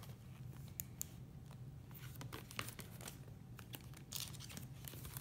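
Faint crinkling and rustling of a clear plastic bag and paper wrapper as a boxed leather notebook is handled, with a few small clicks.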